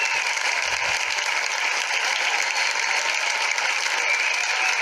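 A crowd applauding steadily, with a few high cheers near the start and end.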